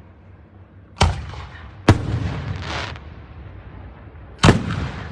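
Fireworks shells bursting overhead: three sharp booms, about a second in, just before two seconds and near the end, each followed by a rolling echo, with a hissing crackle after the second.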